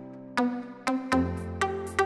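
Electronic background music with a steady beat, about two beats a second; a deep bass note comes in about a second in.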